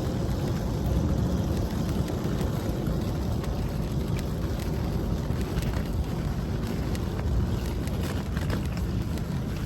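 Wind buffeting the microphone outdoors by the sea: a steady, rumbling rush of noise with faint scattered clicks.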